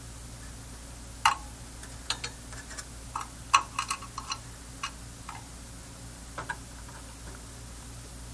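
Small hand tools and parts clicking and tapping during bench work: a flurry of irregular sharp ticks, busiest between about one and five seconds in, over a steady low electrical hum.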